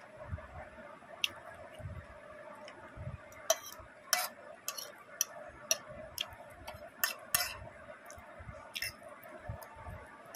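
A person chewing a mouthful of cooked vegetables with the mouth closed: soft low thumps with irregular sharp wet clicks and smacks, over a faint steady hum.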